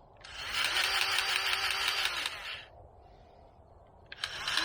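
Battery-powered grease gun's motor running in two bursts: a run of about two seconds that winds up, holds and winds down, then another starting near the end, pumping grease into a loader zerk fitting until it comes out.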